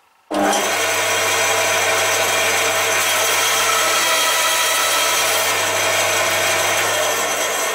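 A band saw starts abruptly and runs with a steady motor hum while its blade rips a narrow strip off a board fed along the fence.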